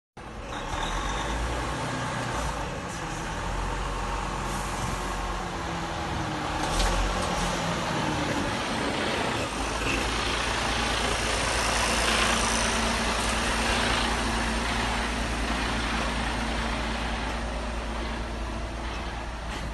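Mercedes-Benz semi-truck's diesel engine running as the truck creeps past at close range, with tyre noise. The engine pitch shifts over the first half, then settles into a steady low drone as the trailer rolls by.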